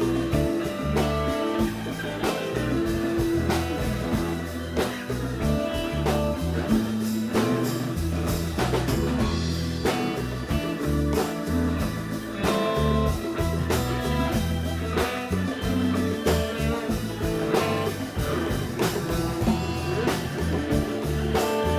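Live rock band playing an instrumental break: a lead guitar solo over bass and drums.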